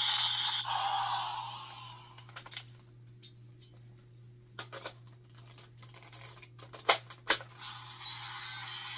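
Electronic sound effect from a Kachidoki Lockseed toy trailing off in the first two seconds, then scattered plastic clicks as it is handled, and two sharp snaps about seven seconds in as it is locked into the Hinawa Daidai DJ Gun toy blaster. The blaster's electronic standby sound starts right after the snaps.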